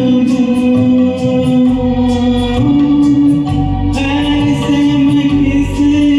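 A male voice sings long held notes of a Hindi film song over a karaoke backing track with a steady beat.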